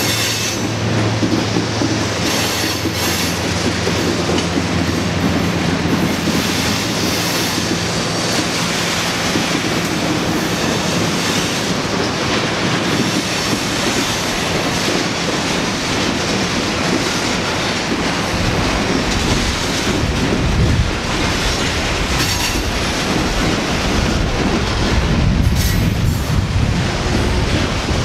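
Freight cars rolling past close by: steady rumble and clatter of steel wheels on the rails from a string of covered hopper cars, while a train of autorack cars crosses the bridge overhead.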